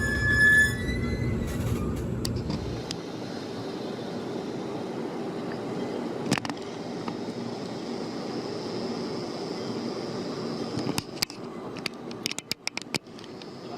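Electric train at a station platform, with a brief high brake squeal at the start. Its low rumble stops about three seconds in, leaving the steady hum of trains standing at the platform. A sharp click comes about six seconds in, and a run of clicks and knocks near the end.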